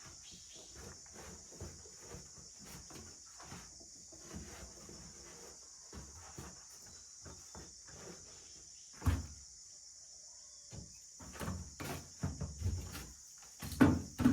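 Knocks, clatter and thuds of household belongings being handled and packed, with a louder thump about nine seconds in and a cluster of heavier ones near the end, over a steady high insect chirring.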